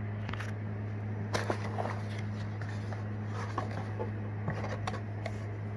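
A cardboard tackle subscription box being handled and opened: scattered light rustles, taps and crinkles, over a steady low hum.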